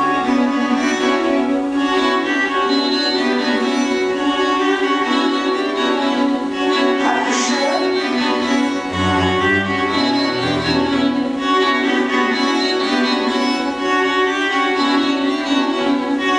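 String quartet playing live with a pre-recorded string-quartet tape: steady, rapidly repeating bowed figures on violins, viola and cello, in a dense minimalist texture.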